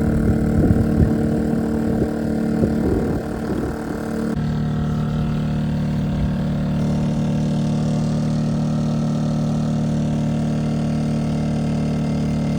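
An engine running steadily, a loud even hum. It changes abruptly about four seconds in to a steadier, lower drone.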